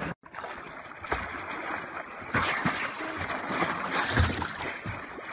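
Water splashing and sloshing against the bow of a small boat moving across a river. There are several louder splashes, the biggest about two and a half and four seconds in.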